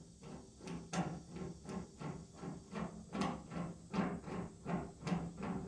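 Hand rivet-nut tool being worked by its knurled knob at a stainless steel rivet nut set in an aluminum column: a quick run of light clicks, about four a second, each with a short low ring.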